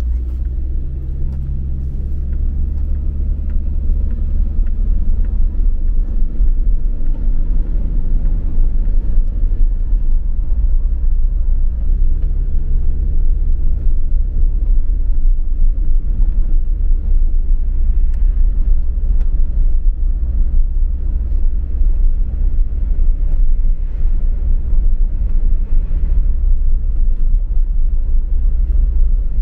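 A car driving along: a steady low rumble of road noise with an even engine hum.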